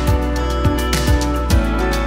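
Background music with a steady beat, about two beats a second under sustained held chords.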